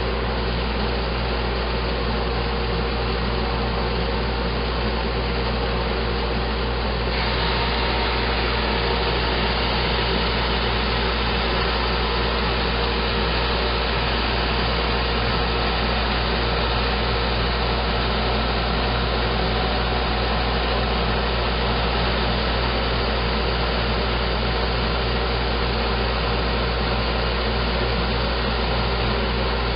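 Homemade drum sander with a motor-driven conveyor belt running steadily: a mix of motor hum and a constant hiss. About seven seconds in, the hiss grows brighter and stays that way.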